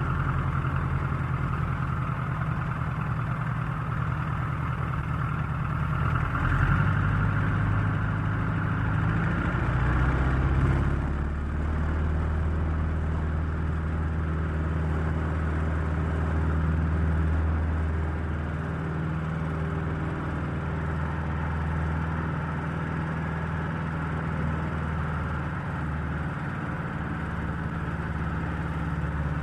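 Airplane engine running steadily after startup: a continuous low hum whose pitch drops about eleven seconds in and then holds steady.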